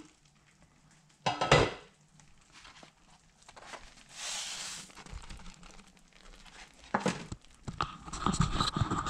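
Kitchen handling sounds at a crock pot: a sharp knock a little over a second in, a brief hiss about four seconds in, then scattered knocks and clatter of cookware that grow busier in the last two seconds.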